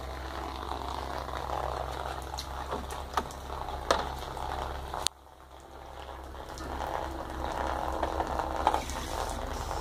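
Water trickling and splattering from a hydroponic table's overflow outlet beside the reservoir barrel, a steady thin stream. It drops away suddenly about five seconds in and builds back up.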